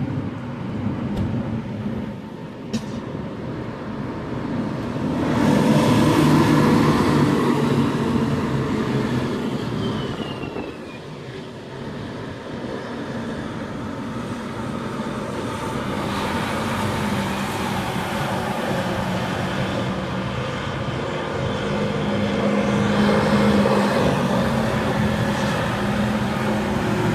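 Cars passing on a wet road, with tyre hiss and engine hum. It swells loudest twice as vehicles go by, against the rush of storm wind.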